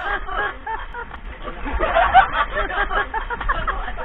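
Several people laughing and chattering, in short repeated bursts of laughter that are loudest about halfway through.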